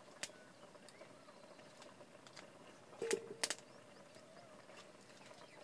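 A pot boiling over a wood fire: a faint steady sound with a thin wavering whine running through it. A few sharp clicks and snaps break in, the loudest cluster about three seconds in.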